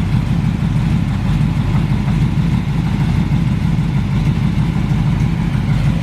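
454 big-block V8 idling steadily through dual exhaust with Cherry Bomb mufflers, a low, even idle with no change in speed.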